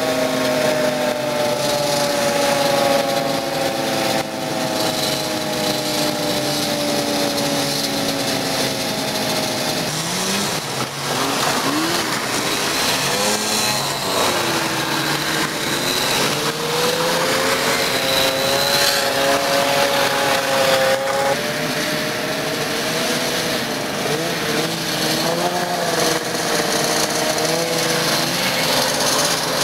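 Vintage two-stroke snowmobile engines running as sleds pass and ride off. One engine's pitch sinks steadily for about the first ten seconds, then other engines' pitches waver up and down.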